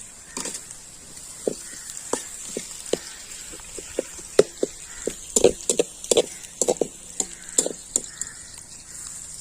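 Onions frying in hot oil with a steady high sizzle. A ladle stirs them, knocking and scraping against the pan in irregular taps that come thickest about five to seven seconds in.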